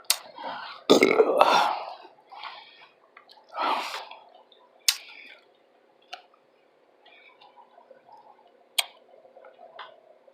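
A person burping into the microphone, a loud burp about a second in and a second one nearer four seconds, with a few sharp clicks and soft mouth sounds between them.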